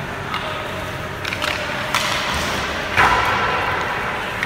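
Hockey stick blade tapping and pushing a puck across the ice in a few light clicks while stickhandling, with a hard knock that rings briefly about three seconds in.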